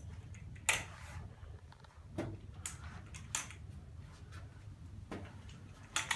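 Aluminium forearm crutches clicking and knocking as a person walks on them, about six sharp, irregularly spaced clicks.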